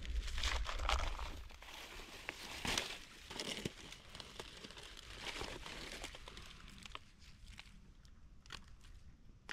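Dry leaf litter crunching and rustling, with scattered small snaps, loudest in the first few seconds and softer after.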